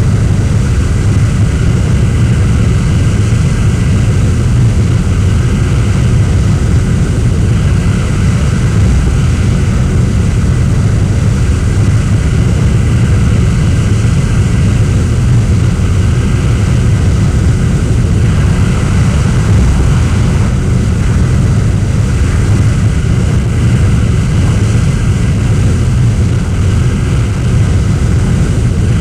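Jet aircraft engine noise: a loud, steady low rumble that holds without a break.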